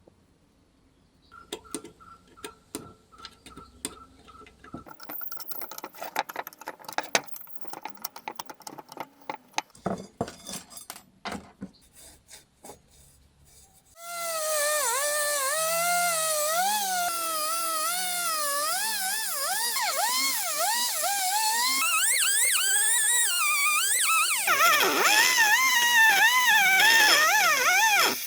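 Scattered metallic clicks and taps. Then, about halfway through, a small electric power tool starts up and runs with a whine whose pitch wavers up and down as it is loaded against the work.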